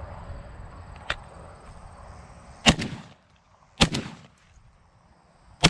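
Shotgun fired three times at doves: two shots about a second apart, then a third about two seconds later. A light click comes about a second in.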